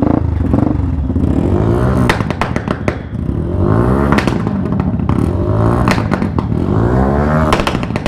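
Yamaha R15S single-cylinder engine revved repeatedly through an exhaust fitted with a fire-shot kit: the pitch climbs and falls about four times, and sharp pops and bangs come again and again between the revs.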